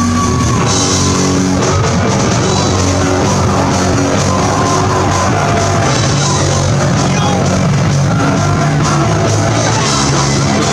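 Live hardcore punk band playing loud, with distorted electric guitar over a dense, unbroken wall of band sound, recorded from inside the crowd.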